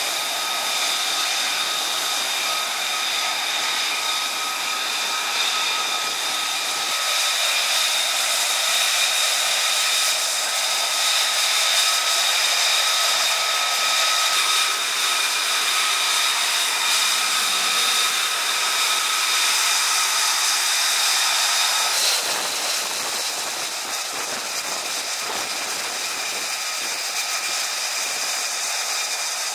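F-35C Lightning II's turbofan jet engine running, a steady rush of exhaust with several high whining tones over it. About three quarters of the way through the sound changes abruptly and one of the whining tones drops out.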